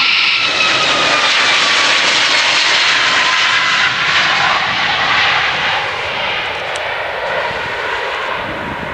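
Boeing 737 MAX 8's CFM LEAP-1B turbofans at takeoff thrust as the airliner lifts off and climbs away. Loud jet engine noise with a whine that falls in pitch early on, growing a little quieter after about five seconds.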